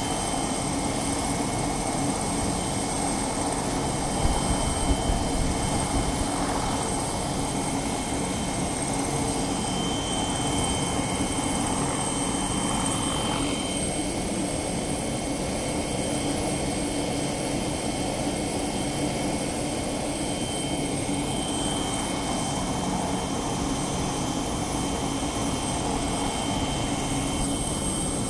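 Air ambulance helicopter running on the ground: a steady engine whine and rotor noise with thin high tones held throughout. A few brief thumps about four to six seconds in.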